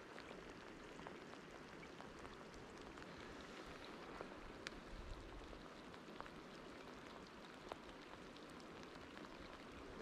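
Faint light rain falling on a river's surface: a steady soft hiss with scattered sharp ticks of single drops.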